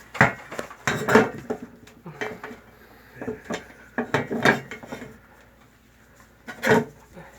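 Metal tools and fittings being handled and knocked together: a run of irregular clinks and clatters, with a louder knock near the end.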